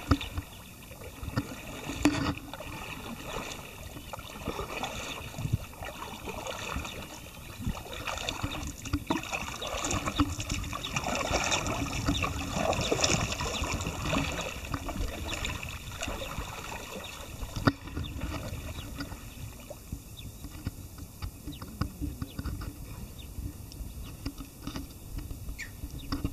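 Kayak paddle blades dipping and splashing in calm water, with water lapping. The splashing is loudest about halfway through as the kayak passes close by, then fades as it moves away.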